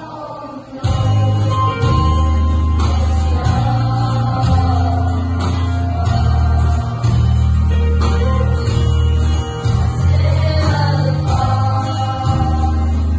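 Children's choir singing a song with instrumental accompaniment. A strong, steady bass line comes in loudly about a second in and carries on under the voices.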